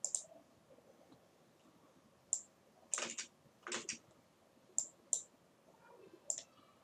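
Computer mouse and keyboard clicks: about seven short, separate clicks spread unevenly through a quiet stretch.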